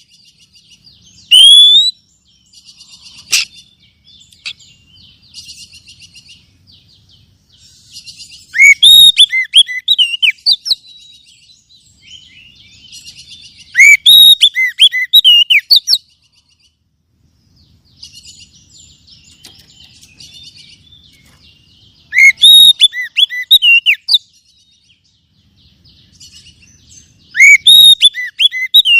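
Oriental magpie-robin (kacer) singing. Five loud bursts of sweeping whistled notes come a few seconds apart, with quieter, rapid scratchy chattering between them.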